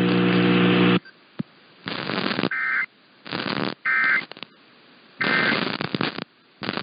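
Emergency Alert System end-of-message data bursts: three short two-tone warbling bursts about 1.3 seconds apart, each in a patch of radio static. They follow a steady buzzing tone that cuts off about a second in, and mark the close of the broadcast warning.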